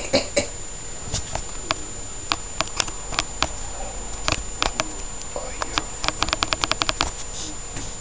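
Gull's beak tapping and knocking against window glass in sharp clicks, scattered at first, then a quick run of taps about six seconds in.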